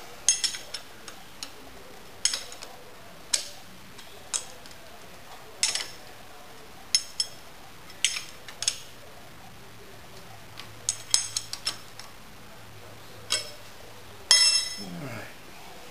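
Sharp metallic clicks and clinks of a hand wrench on the clamp bolts of a vertical milling machine's tilting head, coming singly or a few at a time about every second, with the loudest cluster near the end.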